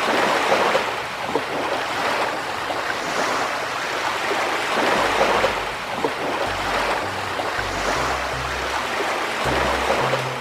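Recorded ocean surf washing in and out, swelling every two or three seconds. Low synth bass notes come in about halfway through.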